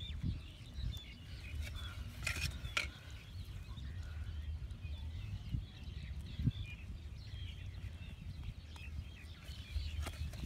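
Small birds chirping over a low rumble, with two short knocks about two and a half seconds in.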